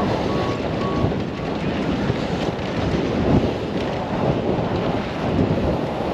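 BMX start-gate cadence: four short beeps in the first second and a half. Under and after them, heavy wind rush and rumble on the microphone as the rider rolls down the track.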